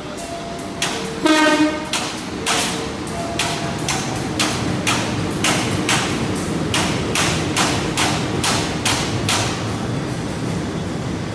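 A passenger train passing: a short horn blast about a second in, then a steady run of wheel clacks over rail joints, about two to three a second, over the rumble of the train.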